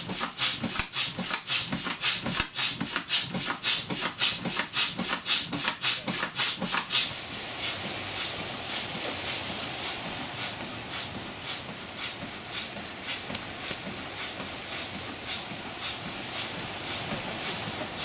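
Fast, even rubbing or scraping strokes, several a second. About seven seconds in they turn softer and hissier, with a weaker rhythm.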